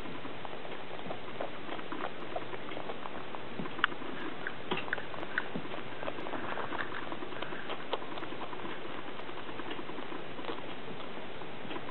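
A cat sucking on a person's fingers: soft, wet smacking and clicking sounds, irregular and close, over a steady hiss, with one sharper click about four seconds in.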